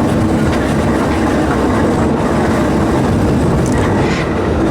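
Park steam train running along the track, with a steady rumble of wheels on rails.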